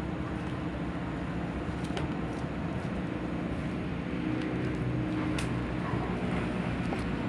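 A steady low rumble, with a few faint rustles and taps as a cardboard box and plastic-wrapped wooden kit panels are handled.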